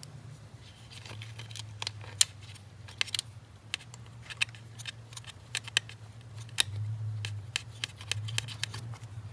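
Irregular sharp clicks and clinks of hand tools and small engine parts being handled while working on a V6 engine bay, over a low steady hum.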